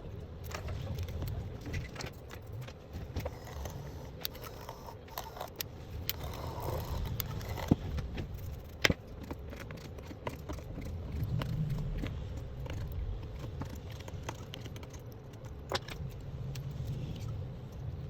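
Scattered light clicks and small metallic taps, typical of hand tools such as tweezers and a screwdriver working on a smartphone's parts, with two sharper clicks about midway. Under them runs a steady low rumble.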